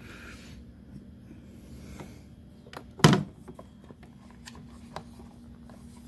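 Hands handling a coffee maker: light rubbing and a few small clicks, with one sharp louder knock about three seconds in.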